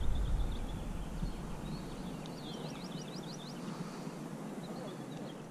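Outdoor waterside ambience with a low rumble in the first couple of seconds. About two seconds in, a songbird sings a quick run of about eight short, high, descending notes.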